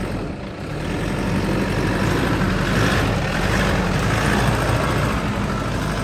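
Toyota Fortuner automatic SUV's engine running steadily as it climbs an off-road trail, getting louder about a second in.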